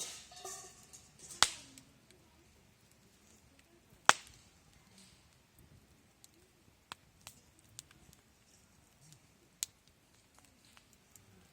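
Wood fire crackling, with sharp pops about one and a half and four seconds in and another near the end, and a short hiss from the burning wood at the start.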